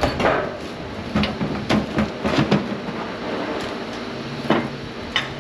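Irregular metal clanks and knocks from scrap transformer parts being worked apart, about eight sharp hits, most of them in the first half, over a steady low hum.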